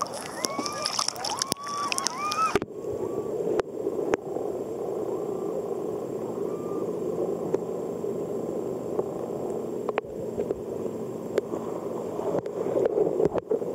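Muffled water noise heard through a submerged camera: a steady low hiss with scattered sharp clicks. For the first couple of seconds a few short rising squeaky tones are heard, and they stop abruptly when the hiss takes over.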